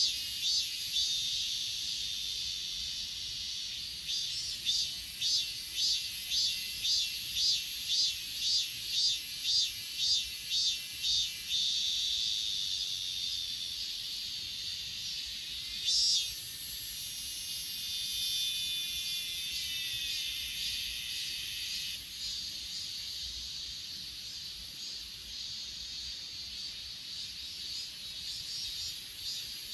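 Grass insects chirping and trilling in chorus: a pulsed chirp repeating about three times a second in the first half, then a higher continuous buzz that sets in sharply about halfway through and fades a few seconds later.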